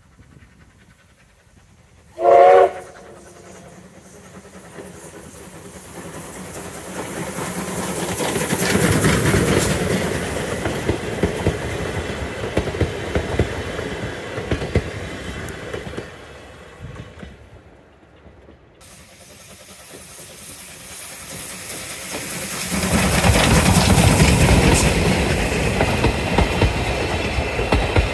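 A steam locomotive's whistle sounds once, briefly, about two seconds in. Then the steam train's running noise builds as it approaches and passes, and fades away. Later, vintage passenger coaches roll past close by, their wheels loud on the rails.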